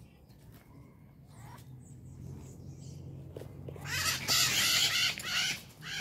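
A flock of parrots and small macaws screeching: faint calls at first, then a loud burst of harsh calls from about four seconds in that lasts under two seconds.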